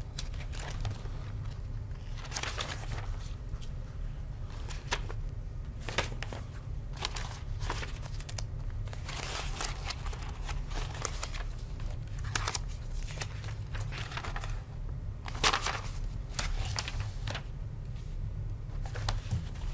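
Paper rustling and being shuffled close to a table microphone, in irregular crinkling bouts, over a steady low room hum.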